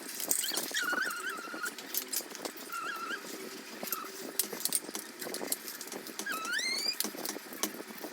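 Plastic Lego bricks clicking and clattering as pieces are handled and sorted, with a few brief high squeaky chirps, one of them rising sharply about six seconds in.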